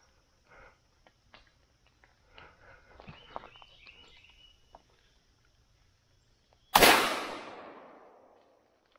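A single 12-gauge shotgun shot about seven seconds in, its echo dying away over about a second and a half. Before it, only faint chirps and light rustling.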